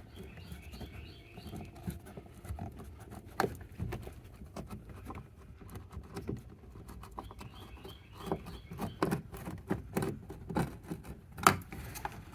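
Phillips screwdriver backing a small screw out from inside a car's interior door handle, with irregular light clicks, taps and faint scratching of tool and hands on the plastic trim.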